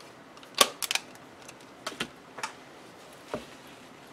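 Sharp clicks and taps from handling a stamp platform, with its small round magnets clicking onto the metal plate that holds the paper. There are about half a dozen irregular clicks, the loudest about half a second in.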